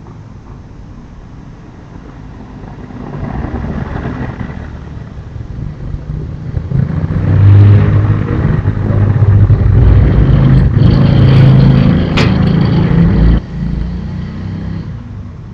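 Motorcycle engine passing close by, growing louder from about three seconds in and running loud for several seconds, then dropping off suddenly about thirteen seconds in. There is one sharp click shortly before the drop.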